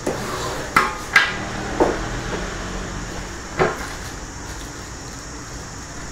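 Handling noise from a tripod in its carry bag being pulled out of its cardboard box and set down: four sharp knocks and clatters in the first four seconds, then quieter handling.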